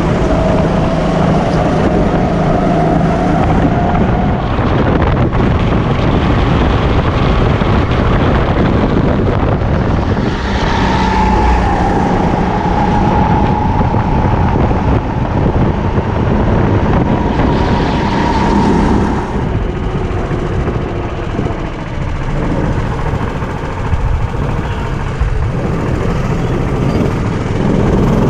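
Rental racing kart's engine running hard under the onboard camera, its pitch rising and falling with the throttle over a heavy rush of wind and track noise. The engine note drops away a little past the middle and the sound is quieter for a few seconds before picking up again.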